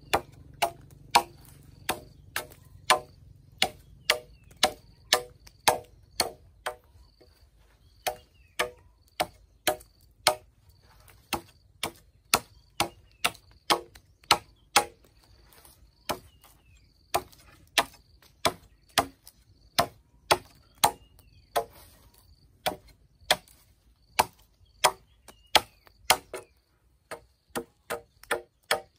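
Wood being chopped by hand with a blade tool: sharp, separate strikes about two a second, in runs broken by short pauses.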